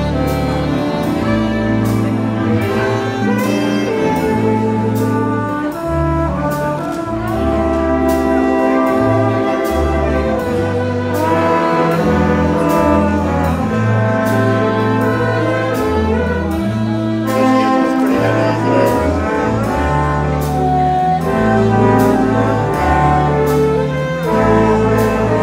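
Live big band playing a swing standard, with saxophone and brass sections over a walking bass line and drums. Regular cymbal ticks keep the beat.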